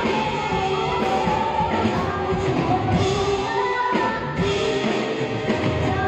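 A woman singing a song into a microphone with a live band, electric guitar audible, amplified through a stage PA during a soundcheck.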